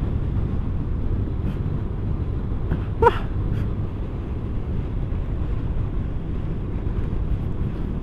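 Riding a motor scooter at speed: steady wind buffeting the camera microphone over the low rumble of the scooter and its tyres on the road. A brief short pitched chirp stands out about three seconds in.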